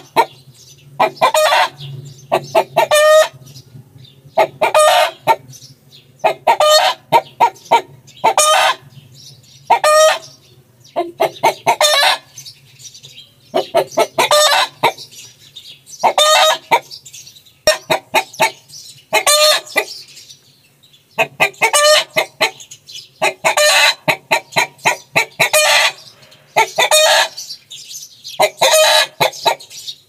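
Chickens calling over and over: short, high-pitched clucks in quick groups of two or three, repeated every second or two.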